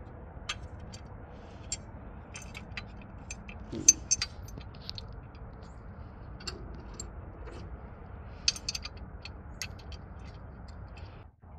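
Scattered small metal clicks and clinks of hardware being handled: locking nuts and Allen bolts being fitted to a plastic chainsaw holder, and hand tools picked up off a steel tractor bucket. The sharpest clinks come about four seconds in and again around eight and a half seconds.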